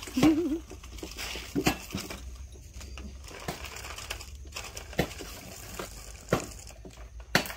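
Scattered knocks, taps and scrapes of a baby macaque's hands and feet on a hollow plastic toy motorbike as it clambers over it. A brief wavering vocal sound comes just after the start.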